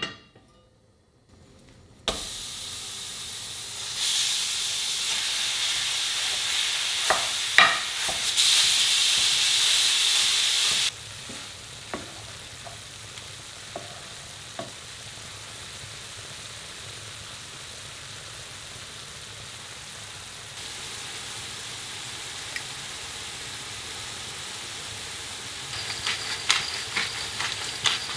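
Food sizzling in a hot pan. It starts suddenly about two seconds in, runs louder for several seconds, then settles into a steady, quieter sizzle. A utensil clicks against the pan now and then while stirring, more often near the end.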